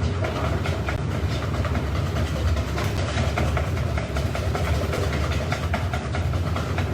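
Steady low mechanical rumble of a working restaurant kitchen, with many faint ticks and clinks over it.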